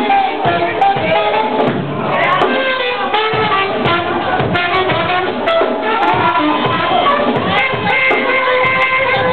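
Live band playing a blues-funk number: a saxophone plays a bending melody line over electric bass, guitar and drums.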